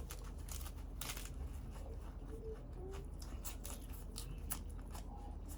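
Someone eating balut (fertilised duck egg): irregular clicks and crunches of biting and chewing, over a steady low hum.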